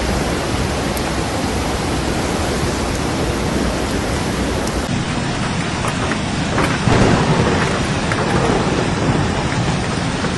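Heavy rain falling, a steady dense hiss, with a louder low rumbling swell about seven seconds in.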